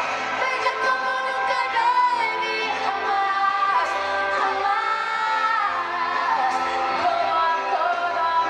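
Pop song: a woman singing over instrumental backing.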